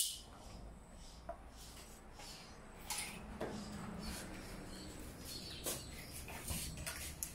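Faint handling sounds of vinyl wrap film being smoothed and pulled over a plastic motorcycle seat cowl: scattered small rustles, scrapes and squeaks.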